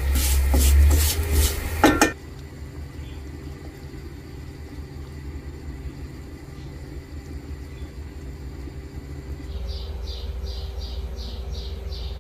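Vermicelli being stirred and toasted in a metal frying pan, with rhythmic scraping strokes over sizzling, for about the first two seconds. After that there is a steady low hum, and near the end a rapid run of faint high chirps, about four a second.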